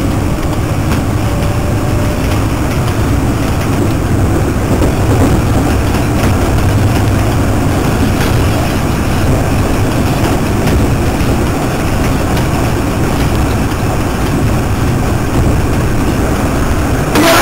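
Washington Metro railcar running along its track, heard from inside the car: a steady low rumble of wheels on rails and running gear.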